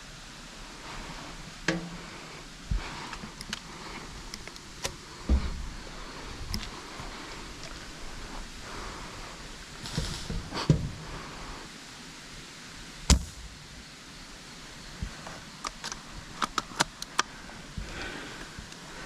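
A steady hiss with rustling, broken by scattered sharp clicks and knocks. The strongest comes about thirteen seconds in, and a quick run of clicks follows near the end.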